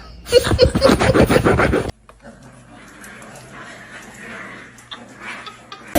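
A dog vocalising in a quick run of short, pitched grumbling sounds for about a second and a half, cut off suddenly, followed by faint room sound.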